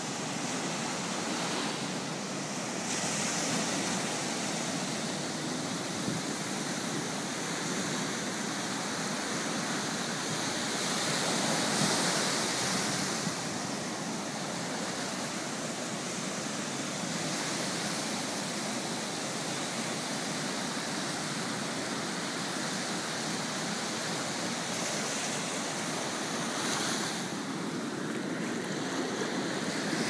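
Ocean surf breaking and washing up over wet sand: a steady rush of water that swells louder about twelve seconds in and again near the end.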